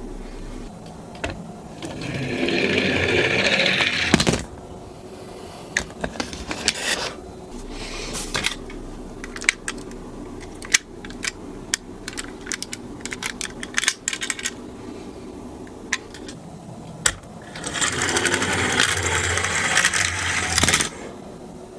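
Toy minicars rolling down a slope twice, each run a few seconds of rolling rattle: once about two seconds in and again near the end. Sharp clicks and clacks fill the gap between the runs.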